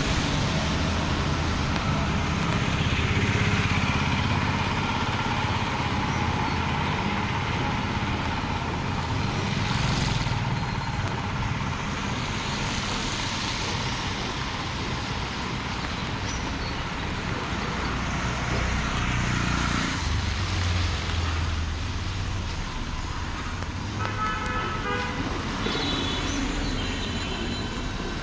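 Street traffic in the rain: motor vehicles passing with engines running and a steady hiss, and short horn toots near the end.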